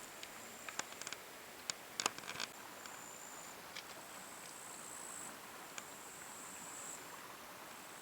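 Faint, steady, high-pitched insect chirring that swells and eases in stretches, with scattered small sharp clicks, a few bunched about two seconds in.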